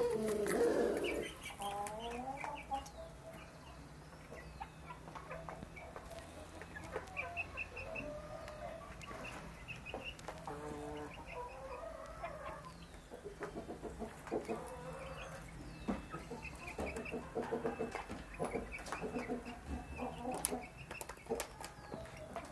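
Half-grown chicks clucking and peeping in short repeated calls while they feed, the loudest calls about a second in, with scattered sharp taps of beaks pecking at the feed dish.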